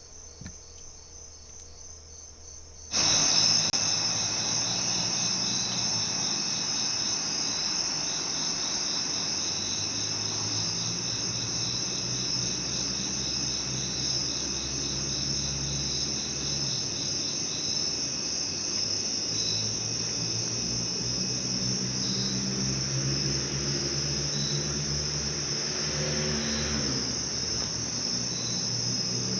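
Crickets and other insects singing: a steady high shrill with a fast, even pulsing chirp. It gets suddenly louder about three seconds in. A faint low hum runs underneath.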